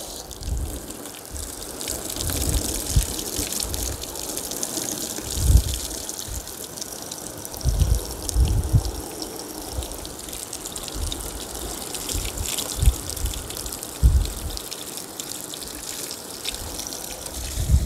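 Garden hose spray nozzle spraying water hard against an RV compartment door and its seal, a steady hissing splatter in a water test of the newly replaced seal; the spray stops at the very end. Gusts of wind rumble on the microphone now and then, the loudest moments.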